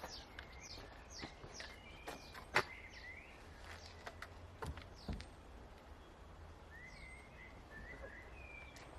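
Birds chirping faintly in a series of short falling notes, with a few sharp clicks or knocks among them, the loudest about two and a half seconds in.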